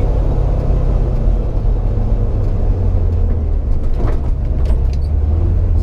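Fox-body Mustang GT's 5.0-litre V8, fitted with GT40 heads, heard from inside the cabin while driving. It makes a steady low engine drone over road noise, climbing slightly in pitch near the end as it pulls.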